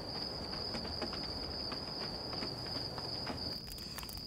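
Crickets chirping steadily in a high, even band, with faint scattered clicks and rustles.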